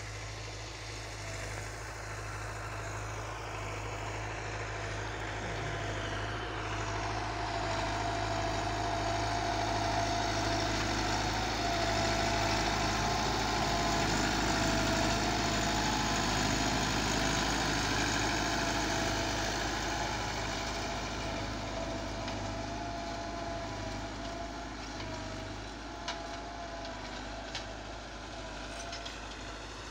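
Massey Ferguson 385 tractor's four-cylinder diesel engine running as it pulls a tillage implement across plowed ground, with a steady whine over the engine note. It grows louder to a peak about halfway through as the tractor passes, then fades again.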